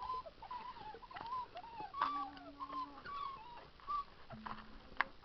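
Young puppies whining and whimpering in many short squeals that rise and fall in pitch, one after another. A single sharp click near the end.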